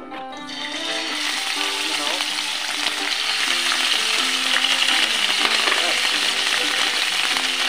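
Pieces of raw meat sizzling in hot oil in a frying pan as they go in. The sizzle swells within the first second and then holds as a steady, loud hiss.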